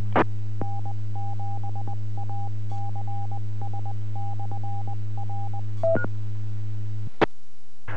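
A ham radio repeater's Morse code identifier, heard through the receiver: a single tone keyed on and off in dots and dashes for about five seconds over a steady hum. It ends in a short beep that steps up in pitch, then the repeater drops with a click and the hum stops.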